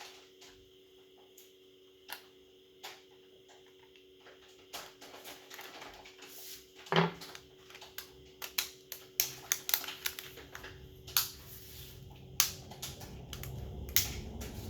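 Small sharp clicks and taps from handling smartphone parts and repair tools on a workbench during reassembly. They come sparsely at first and much more often from about halfway through.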